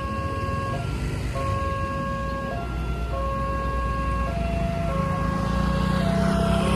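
Railway level-crossing warning siren sounding from its loudspeaker horn. It plays a two-tone alarm: a long lower note of about a second, then a short higher note, repeating about every 1.7 seconds, warning that the barrier is closing for an approaching train. A low steady rumble runs underneath and grows louder near the end.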